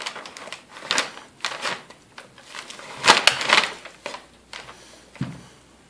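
Dog gnawing a big raw soup bone: irregular bursts of crunching and scraping of teeth on bone, with the butcher paper under it crinkling. The loudest burst comes about three seconds in, and there is a dull knock near the end.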